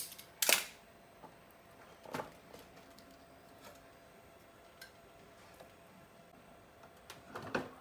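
Scattered clicks and light knocks from hands handling wires and tools on a metal workbench. The loudest comes about half a second in, another about two seconds in, and a small cluster near the end.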